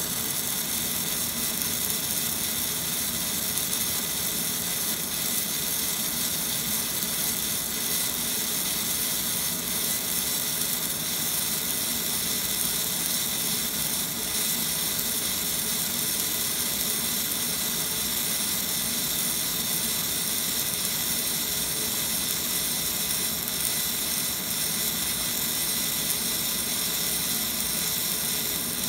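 Fiber laser marker engraving a metal plate at a slow marking speed for a darker mark: a steady hiss with a faint steady high tone, unchanged throughout.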